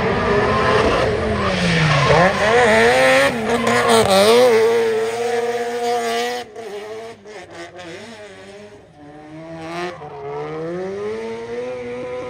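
Drift car engine revving hard while the car slides sideways, its pitch dipping and climbing with the throttle over the hiss and squeal of spinning tyres. About six seconds in the sound drops away to a fainter, steadier engine note that rises again near the end.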